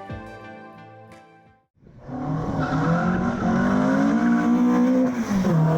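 Background music fades out, then after a short gap the Alfa Romeo Giulia Super's twin-cam four-cylinder engine is heard revving: its pitch climbs, holds, and drops to a steady lower note near the end.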